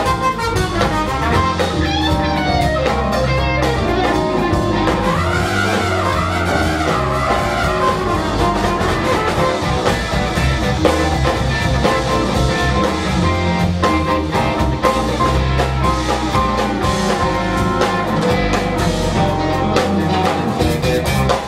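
Live jazz-blues band playing: electric guitar, electric bass, drum kit and trumpet together, with melodic lines over a steady bass and drum groove.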